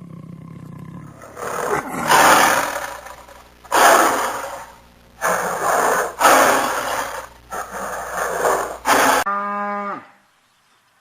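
A big cat roaring: a series of about five loud, rough roars. It ends with a short pitched call near the end.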